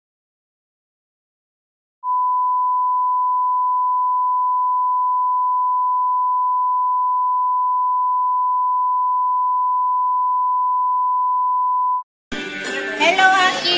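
A steady electronic beep tone, a pure tone held at one pitch for about ten seconds. It starts after about two seconds of silence and cuts off suddenly. Voices start up just after it, near the end.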